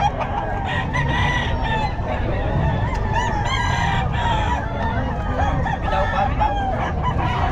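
Several gamefowl roosters crowing and clucking over one another, their calls overlapping, over a steady low background rumble.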